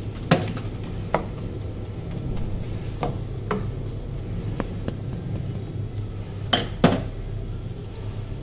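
Wooden spoon stirring cluster beans in a large aluminium pot, knocking against the pot's sides as it goes. There is a sharp knock about a third of a second in, scattered lighter ones through the middle, and a loud pair near the end, over a steady low hum.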